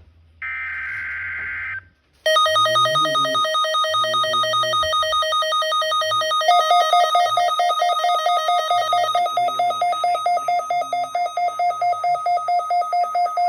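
The last burst of an Emergency Alert System SAME header, a buzzing digital data tone lasting about a second and a half. About two seconds in, weather alert radios sound their alarms: loud pulsing electronic beeps held at a steady pitch, stepping up to a higher tone about six seconds in, and pulsing more distinctly toward the end.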